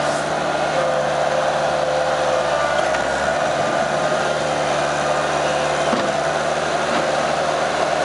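Bobcat 863 skid-steer loader's diesel engine running steadily under work as the machine moves and tips and lowers its bucket, with a steady whine above the engine note.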